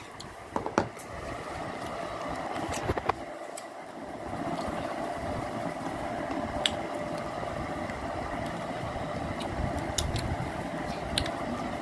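Steady background hum with a few light clicks and taps in the first few seconds.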